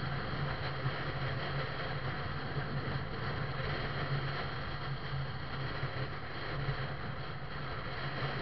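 A vehicle travelling at highway speed, heard from on board: a steady low engine hum under a constant rush of road and wind noise.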